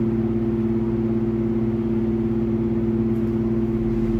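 Steady mechanical hum holding two constant pitches, unchanging throughout.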